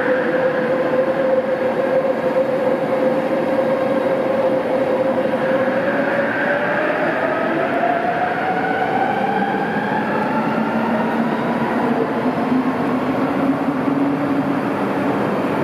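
Kelana Jaya Line LRT train pulling out and accelerating away, its linear-induction-motor drive giving a whine that rises steadily in pitch over the running noise of the cars. A second, lower rising tone joins near the end.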